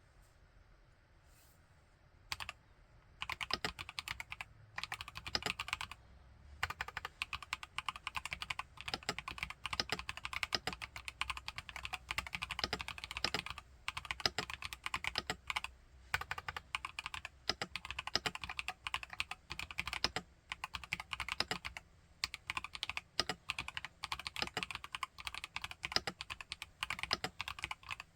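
Typing on an IQUNIX Q66 mechanical keyboard fitted with TTC Holy Panda tactile, non-clicky switches, the keys clacking as they bottom out. One keystroke about two seconds in, then fast steady typing from about three seconds on, broken by a few brief pauses.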